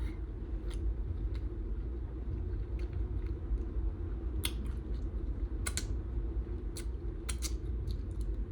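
Chewing with wet mouth smacks: a string of sharp smacking clicks at uneven intervals over a steady low hum.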